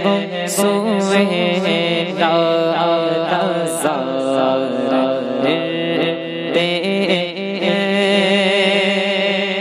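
Male voice singing an Urdu naat in long, wavering melismatic notes over a steady drone.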